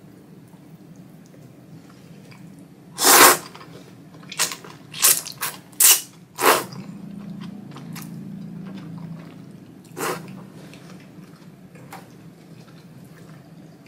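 Thick ramen noodles being slurped: a run of about six loud sucking slurps between three and seven seconds in, the first the longest, and one more near ten seconds, with soft chewing in between.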